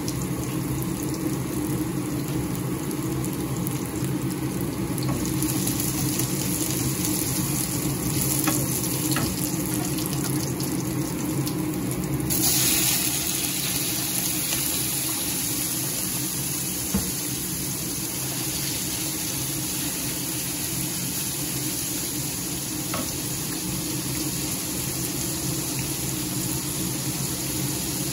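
Sliced onion frying in hot oil in a stainless steel pan, a steady sizzle. About twelve seconds in, raw chicken pieces go into the pan, and the sizzle turns suddenly louder and hissier, then holds as a steady frying hiss.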